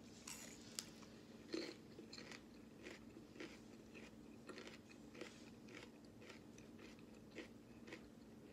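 Chewing raw green bell pepper: a string of faint, irregular crunches as the crisp pepper is bitten and chewed.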